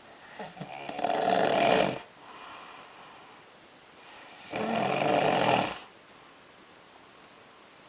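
A sleeping person snoring loudly twice, a few seconds apart, each snore lasting about a second, with quieter breathing between. This is the snoring of someone with obstructive sleep apnea, as the uploader presents it.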